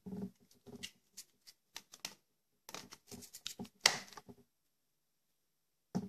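Light plastic clicks, knocks and rustles from handling a vacuum cleaner's corrugated hose and plastic nozzle attachment, the loudest click a little under four seconds in. The handling stops about four and a half seconds in.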